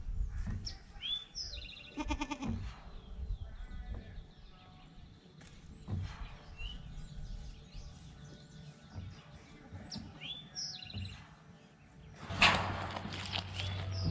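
Small birds chirping now and then, and a short wavering goat kid bleat about two seconds in. Near the end a sudden loud burst of noise, followed by a steady low hum.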